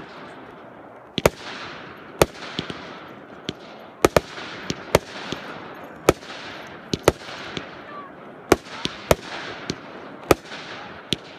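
Fireworks firing shot after shot: sharp bangs roughly once a second, some in quick pairs, each followed by a fading hiss.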